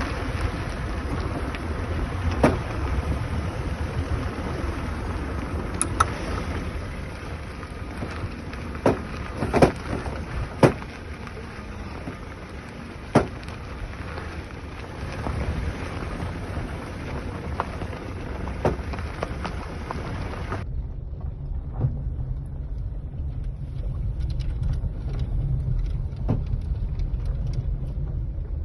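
Ford Focus Mk2 suspension knocking while driving: sharp knocks at irregular intervals, a few seconds apart, over a steady low road rumble. The knocks are the sign of a fault in the running gear.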